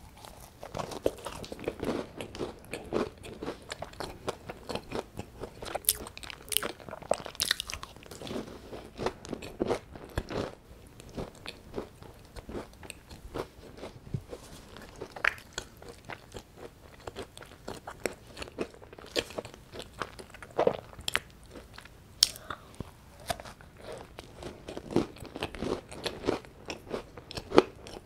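Close-miked biting and chewing of a crumbly scone, with irregular crunches and soft mouth sounds.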